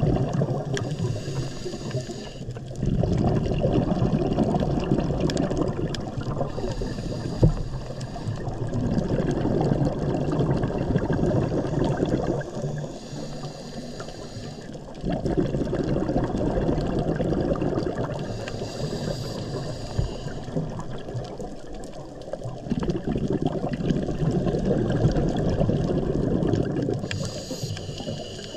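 Scuba diver breathing through a regulator underwater: five hissing inhales, each followed by several seconds of rushing, bubbling exhale. A single sharp tap about seven seconds in.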